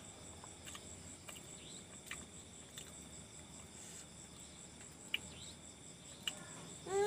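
Crickets chirring steadily in the night, a faint continuous high-pitched trill, with a few soft clicks scattered through it.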